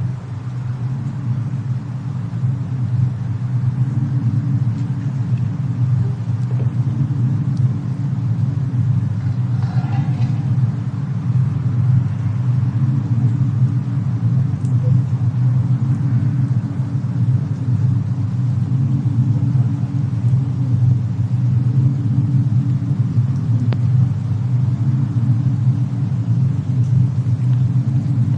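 Winter cabin ambience of a fireplace with a snowstorm outside: a steady low rumble of fire and wind, with a few faint crackles and a faint short tone about ten seconds in.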